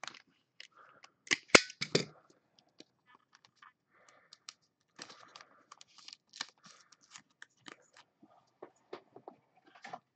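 Trading cards and clear plastic sleeves being handled on a table, with a box cutter in use: a few sharp clicks and snaps in the first two seconds, then light crinkling of plastic and soft taps.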